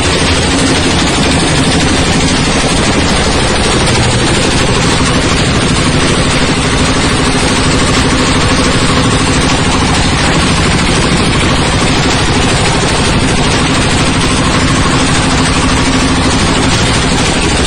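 Coconut husk decorticating machine running, a loud steady mechanical din with a low engine hum underneath.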